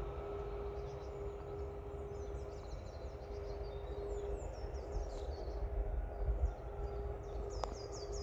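Outdoor ambience: small birds chirping in many short, high notes, busiest about halfway through and again near the end. Under the chirps run a steady low rumble and a faint steady hum.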